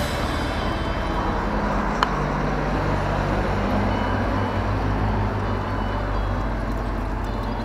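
Steady low rumble of vehicle traffic, with a low engine-like hum that shifts in pitch a couple of times, and a single sharp click about two seconds in.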